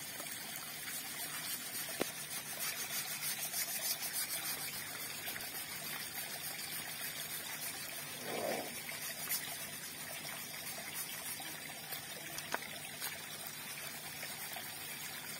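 Water trickling and running over a wet concrete floor, with a couple of sharp clicks.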